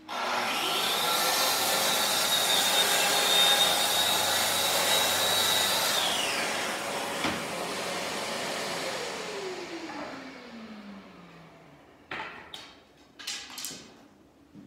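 Corded track saw spinning up with a rising whine and cutting along its guide rail through plywood for about six seconds, a dust extractor running on its hose; the saw then winds down. The extractor runs on and spins down with a long falling tone, and there is a click partway through and a few knocks near the end.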